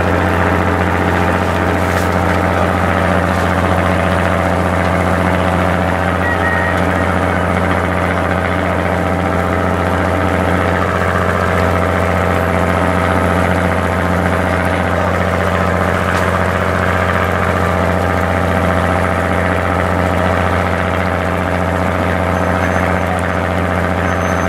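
Fishing boat's engine running steadily, a loud, even low drone that holds unchanged throughout.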